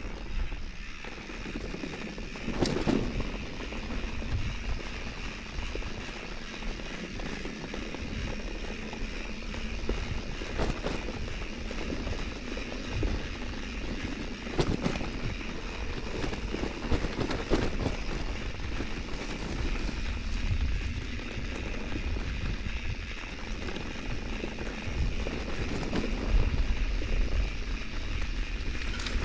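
Mountain bike riding on a dirt trail: wind rushing over the camera microphone and tyres rolling over the ground, with a few sharp knocks and rattles as the bike goes over bumps.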